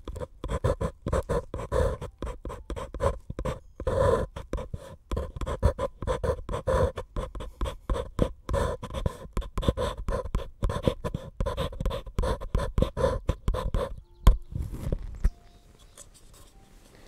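A pencil writing and scribbling on a paper cup in quick, repeated strokes, with the cup's hollow body resonating under each stroke. The strokes stop about fourteen seconds in with a single sharp knock. Faint, thin tones follow.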